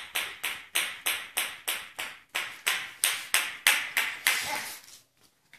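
A toy making a rapid, even run of sharp pings, about three a second, each dying away quickly; the pinging stops about a second before the end.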